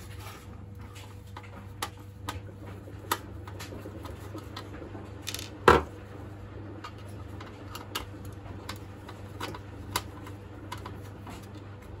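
Screwdriver and fingers working screws out of a sheet-metal heater housing: scattered small metallic clicks and ticks, with one louder clack about six seconds in as the screwdriver is set down on the bench. A steady low hum runs underneath.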